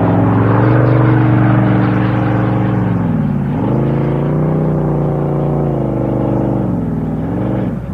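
Top Fuel hydroplane drag boat's blown nitromethane-fuelled engine running at low revs as the boat moves slowly on the water. The revs dip about three and a half seconds in and pick back up, then drop away near the end.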